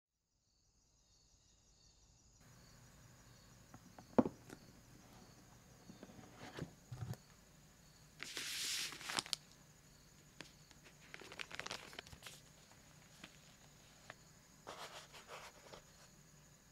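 Hands unpacking a keyboard box: a sharp tap about four seconds in, then rustling of tissue paper and small plastic accessory bags, loudest around eight to nine seconds in, with more soft rustles and light clicks after.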